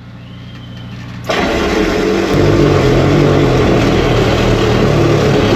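Drain jetter's engine running, then about a second in the high-pressure water comes on with a sudden loud rushing hiss as the jetting hose and nozzle blast through the silted, root-choked pipe. The engine pitch steps up soon after as it takes the load.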